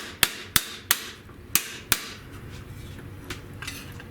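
Hammer striking a sheet-metal floor patch panel: about five sharp, ringing blows in the first two seconds, then a few lighter taps. The panel is being hammered to form ridges like those of the original car floor.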